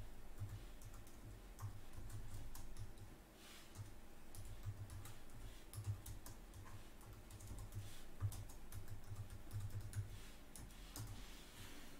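Typing on a computer keyboard: an irregular run of faint key clicks.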